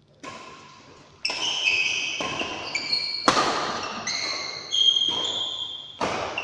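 Badminton rally: rackets striking the shuttlecock with sharp hits about once a second, with high squeaking tones between the hits.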